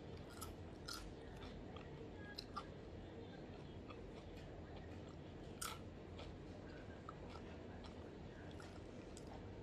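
A person chewing and biting fried instant noodles (Indomie goreng), with scattered small crisp crunching clicks, one sharper than the rest a little past halfway. A steady low hum sits underneath.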